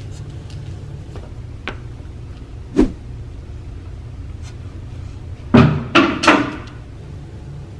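Knocks and bangs of a person climbing over a wooden partition: one sharp knock about three seconds in, then three loud bangs in quick succession near the end, over a steady low hum.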